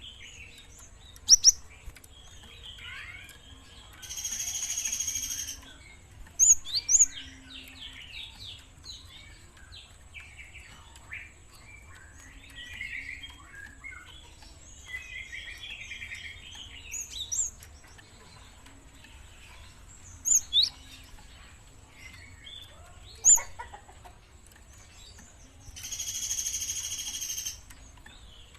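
Young Java sparrow (gelatik) calling actively: scattered twittering with several sharp, loud chirps. Two harsh buzzing sounds, each about a second and a half long, come about four seconds in and near the end.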